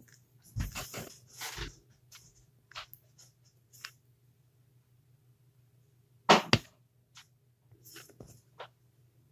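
Scattered small taps, clicks and rustles of fingers and a sculpting tool working polymer clay on a metal pendant base, with one sharper knock a little after six seconds in. A faint low hum runs underneath.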